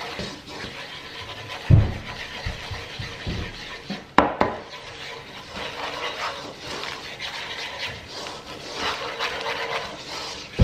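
Wooden spoon scraping and stirring a thick butter-and-flour roux around a pan, with a low thump about two seconds in and a sharp knock a little after four seconds.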